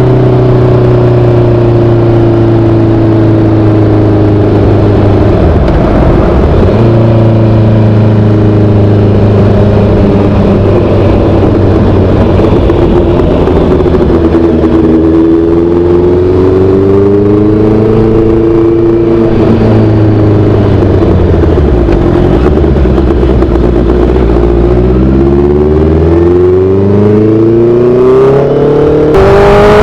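Honda CB650R's inline-four running through an aftermarket SC Project-style full exhaust system while riding. A steady note sags and rises with the throttle, breaks briefly about six seconds in and again a little after twenty seconds, then climbs sharply under hard acceleration near the end.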